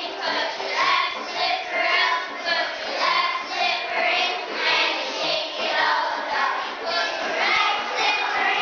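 A choir of young children singing together in unison, the phrases pulsing in a steady rhythm.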